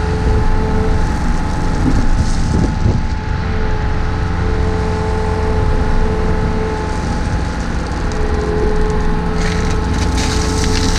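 Takeuchi TB153 compact excavator's diesel engine running steadily, with a higher hydraulic tone coming and going. Near the end, a crunching scrape of rock and dirt joins it.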